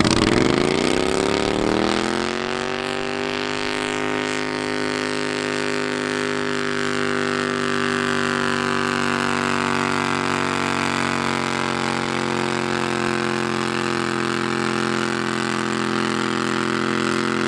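Garden pulling tractor's engine revving up over about two seconds at the start of a pull, then held at a steady high speed as it drags a weight-transfer sled down the track.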